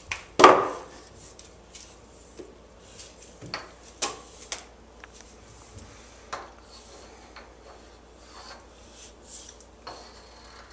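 One loud knock about half a second in as a plastic step stool is set down on a tile floor, then chalk scratching and tapping on a chalkboard in short, scattered strokes.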